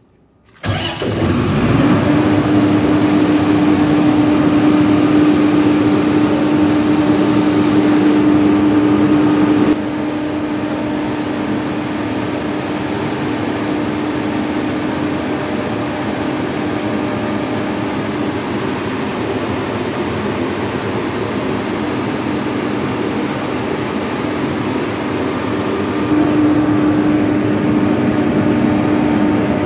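Fortuner 100 kVA silent diesel generator set starting about half a second in and then running with a steady hum. It runs somewhat quieter from about ten seconds in and louder again near the end.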